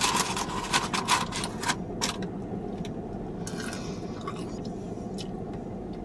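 Paper wrapper and cardboard food box rustling and crinkling in quick crackles over the first two seconds as cheese curds are picked out, then a steady low background hum.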